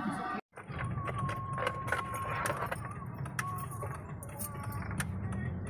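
Street ambience: a steady low hum with scattered clicks, and a faint held tone for about a second and a half early on, just after a brief dropout.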